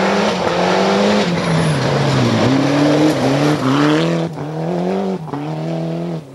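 Rally car engine on a gravel stage, the note sinking as the car slows into the corner, then rising again about two and a half seconds in and climbing in short steps with quick gear changes as it powers out and away, over the hiss of loose gravel under the tyres.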